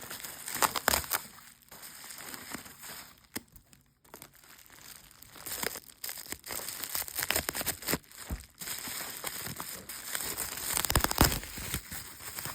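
Plastic packaging crinkling and tearing as a parcel is unwrapped by hand, in irregular rustles and crackles with a short lull about four seconds in.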